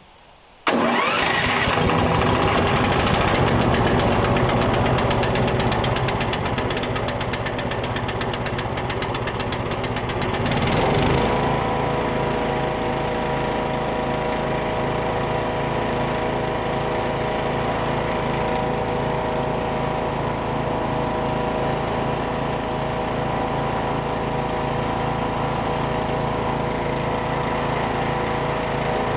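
Small gas engine of a wood chipper starting about a second in and running loud. Its sound settles into a steadier, more even run about eleven seconds in.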